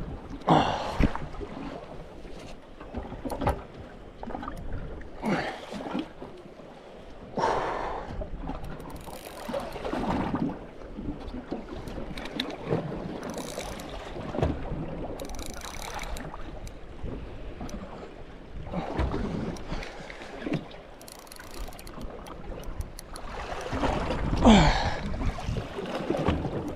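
Water slapping against the hull of a drifting boat in irregular surges every couple of seconds, with wind on the microphone. A few short bursts of fine, rapid ticking come from the spinning reel as the fish is played.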